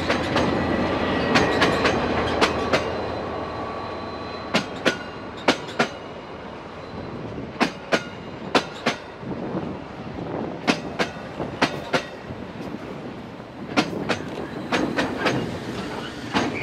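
A passing train: a KiwiRail DFB class diesel-electric locomotive's engine runs loudly as it goes by, then the coach wheels click sharply over the rail joints in quick pairs, wheelset after wheelset. The engine rumble of a second DFB locomotive on the rear of the train comes up near the end.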